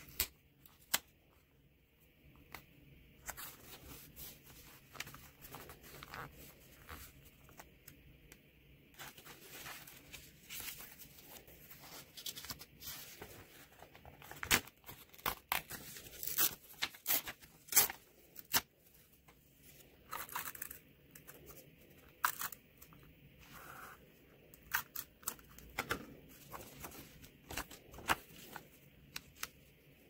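Sheets of paper handled close up and torn by hand: crisp rustling and crackling, with a dense run of sharp tearing sounds in the middle.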